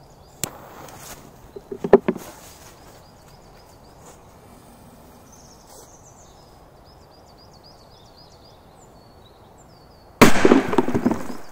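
A few clicks and a sharp knock, then after a long pause a single loud firecracker bang set off in a metal canister, ringing on for about a second. The blast tears a hole in the canister.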